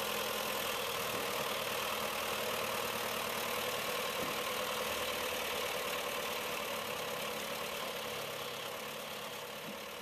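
John Deere 2650 tractor's four-cylinder diesel engine running steadily while the front loader sets a bundle of logs onto the feeder deck. It grows gradually quieter near the end.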